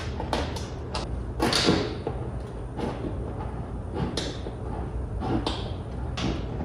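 Thin galvanized steel sheet being handled and bent at a sheet-metal brake: a string of separate metallic knocks and scraping swishes.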